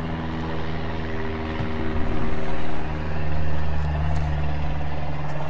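Steady low engine-like drone with a deep rumble beneath it, getting louder from about two to three and a half seconds in.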